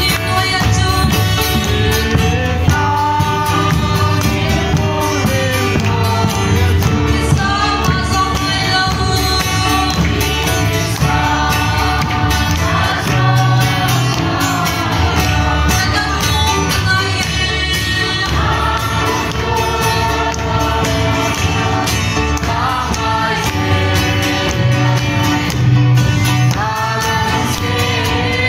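A group of voices singing a Christian song together over amplified instrumental backing.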